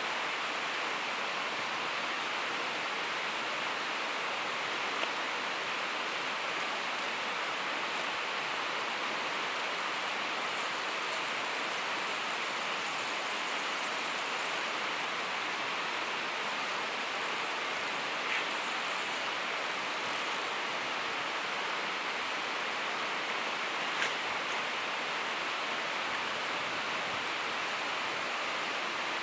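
Steady rushing of river water, an even hiss that does not change, with three faint clicks along the way.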